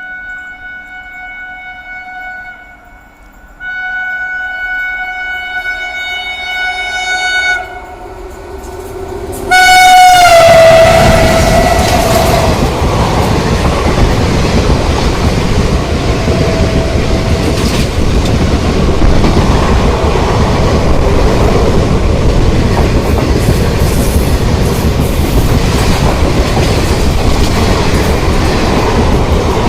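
WAP-7 electric locomotive's horn sounding in long blasts, with a short break about three seconds in. A final loud blast about nine and a half seconds in drops in pitch as the locomotive passes close by. The loud, steady rumble and wheel clatter of the express running through at speed follows.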